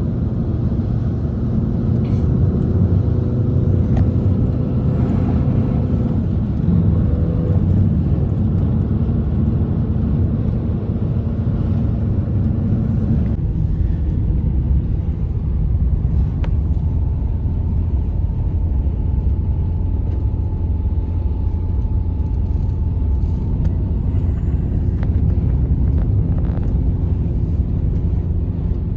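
A loud, steady low rumble with a few faint humming tones riding on it, beginning abruptly just before this stretch and holding unbroken.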